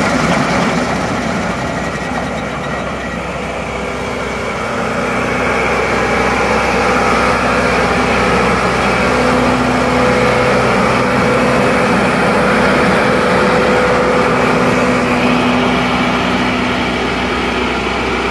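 New Holland 2550 Speedrower swather's engine running steadily, dipping slightly in loudness about three seconds in.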